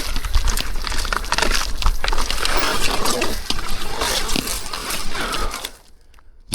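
Canyon Sender downhill mountain bike ridden down a wet, slippery dirt track: tyres crunching and crackling over soil and twigs with a rattle of the bike and a low rumble. It stops abruptly near the end.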